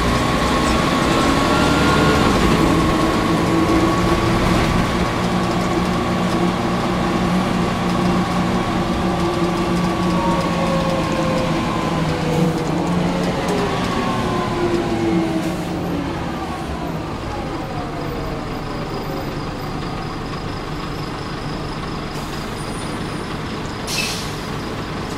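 Volvo B10L bus diesel engine and ZF automatic driveline heard from inside the cabin, running steadily under way. Its whining tones fall in pitch as the bus slows, and it settles to a quieter drone. A short hiss of air comes near the end.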